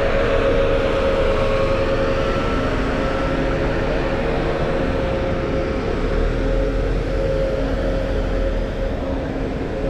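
Road traffic with a double-decker bus passing close by and pulling away: a steady engine hum over tyre and traffic noise.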